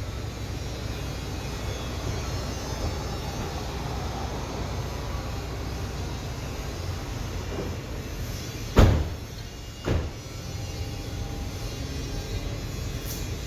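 Steady low rumble of a vehicle driving, with two sharp thumps about a second apart midway through.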